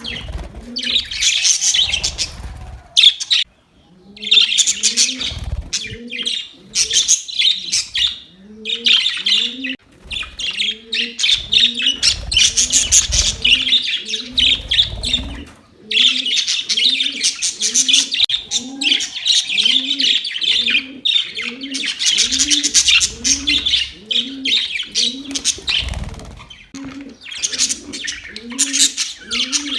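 Budgerigars chirping and chattering in bursts of fast, scratchy warbling. Underneath, a low, short rising call repeats steadily, about once a second.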